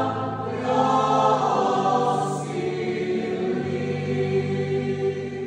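Mixed choir of women's and men's voices singing a Croatian Christmas carol in long held chords that change every second or two.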